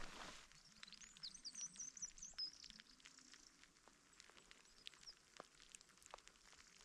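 Near silence outdoors, with a small bird's faint, high chirping for a second or two near the start and a few scattered faint ticks.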